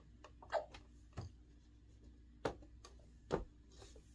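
Wooden doors of an Arachnid Cricket Maxx dartboard cabinet being swung shut, giving about four short knocks and clicks, with fainter ticks between them.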